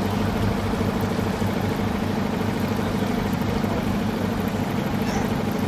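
Boat motor running steadily at low speed, an even low hum with no change in pitch.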